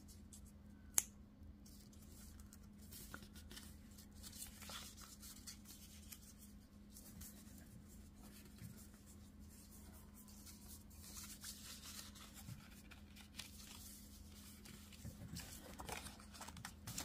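Faint rustling and creasing of a scored paper coin envelope being folded and handled by hand, with one sharp click about a second in. A steady low hum runs underneath.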